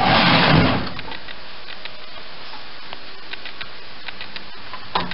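A metal roasting tray scrapes as it is slid into a gas oven. Then comes a steady hiss with scattered small crackles as the roast chicken sizzles in the hot oven.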